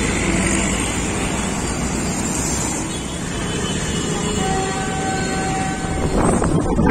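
City road traffic: motorbike and auto-rickshaw engines and passing vehicles blend into a steady din. A steady tone is held for about a second and a half midway through, and the noise grows louder near the end.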